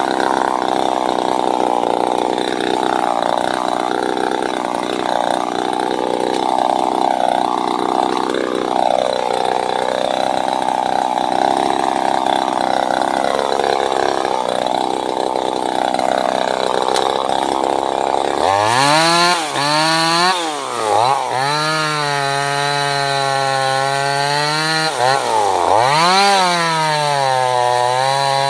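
Wudee 25cc two-stroke top-handle chainsaw running hard with a dense, wavering note, typical of cutting wood. About two-thirds of the way in, the sound turns abruptly to a clean, high engine whine that drops and climbs in pitch twice as the throttle is let off and opened again.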